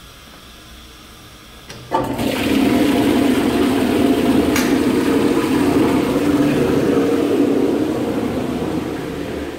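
Public toilet flushing: a sudden rush of water starts about two seconds in, runs loudly for several seconds, then tapers off near the end. A brief click sounds partway through.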